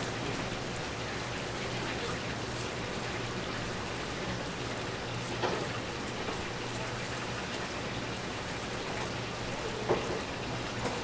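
Chicken deep-frying in hot oil, a steady sizzle, over a low steady hum, with a couple of light knocks about five and ten seconds in.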